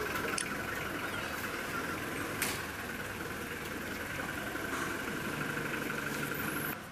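A vehicle engine idling steadily, with one sharp click about two and a half seconds in.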